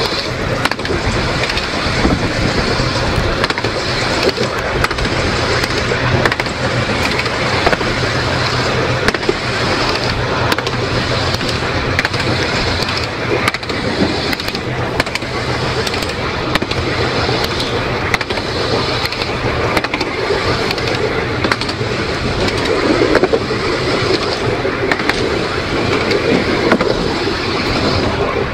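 Electric narrow-gauge tramcar running along the track, heard from on board: a steady rolling rumble of wheels on rail, with frequent small clicks and a steady low hum.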